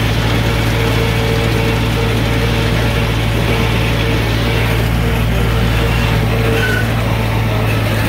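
Ford 5000 tractor engine running steadily under load, driving a New Holland 488 haybine cutting alfalfa: an even, deep drone that doesn't change.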